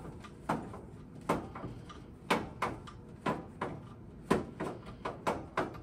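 Pipe wrench clicking and knocking against a steel gas pipe in a run of short, irregular strokes, about two a second, as the gas line is worked loose from a boiler's gas valve.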